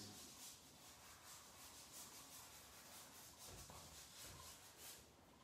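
Faint rubbing of soft pastel on paper, worked in by hand in short repeated strokes.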